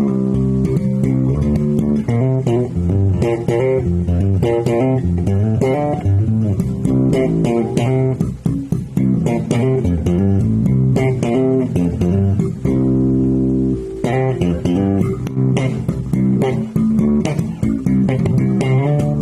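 Electric bass guitar played through a Fender Bassman 20CE bass amp: a continuous run of plucked bass notes and lines, changing pitch several times a second.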